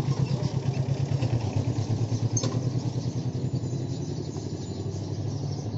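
Royal Enfield Meteor 350's single-cylinder engine running at low revs with an even, rapid low beat.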